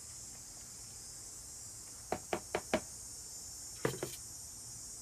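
Plastic gallon water jug knocking against the plastic tub and stone countertop as it is emptied and set down: four quick hollow knocks a little after two seconds in, then one more knock just before four seconds as the jug lands on the counter. A steady high hiss runs underneath.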